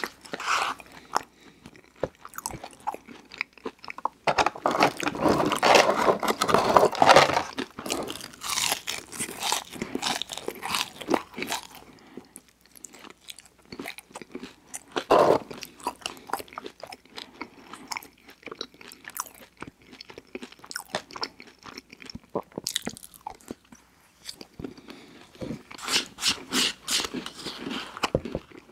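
Close-up eating sounds: a plastic spoon scraping and digging in a paper cup of Oreo McFlurry, and chewing and crunching of the spoonfuls, in irregular bursts of clicks and scrapes.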